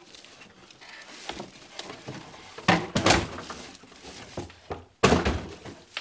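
Cardboard box and plastic-wrapped robot vacuum being handled during unboxing, with rustling and dull thumps: two a little before halfway and a louder one near the end.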